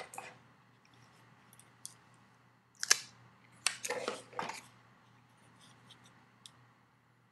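Quiet handling noises from a BlackBerry Bold 9000 handset being picked up and worked in the hands: a few short scrapes and rustles around the middle, with light clicks before and after.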